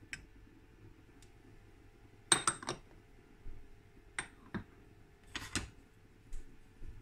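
Kitchenware clinking and knocking lightly: a quick cluster of clinks about two and a half seconds in, the loudest, then single clicks and taps spread through the rest.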